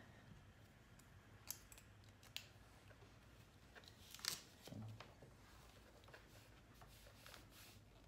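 Near silence broken by a few faint handling clicks and a short paper rustle, the loudest about four seconds in, as a cable is handled at a USB tester and a sheet of paper is moved on the desk.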